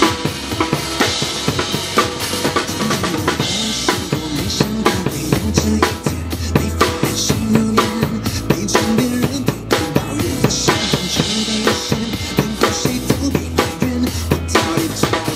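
Drum kit played in a steady pop groove: bass drum, snare and rim hits over held bass and keyboard notes from a recorded song.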